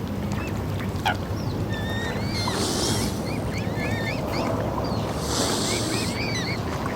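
Waterfowl calling: many short, quick honking and squeaking calls, some hooked in pitch, over a steady low hum. Two brief bursts of hiss or splashing come about two and a half seconds in and again between five and six seconds.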